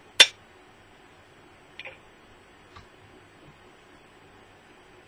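A sharp metallic click as a small metal weight is fitted onto the hanger under the shaft of a magnetically suspended flywheel, followed by two much fainter clicks a second and a half and two and a half seconds later.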